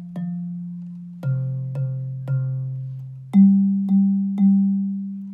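Bass xylophone's low wooden bars struck with soft mallets in a steady quarter-note pulse, a note a little over half a second apart, each left to ring. The line runs the last F, then three Cs, then three louder Gs.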